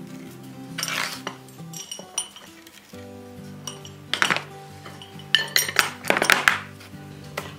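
Iron wagon brake hardware clinking and knocking as it is handled on a workbench. There is a clink about a second in, then a louder run of metal knocks from about four to six and a half seconds in, over background music.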